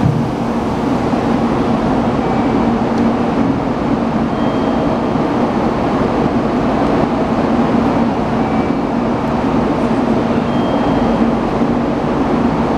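Steady low hum of a train idling at a station platform, running evenly with no change.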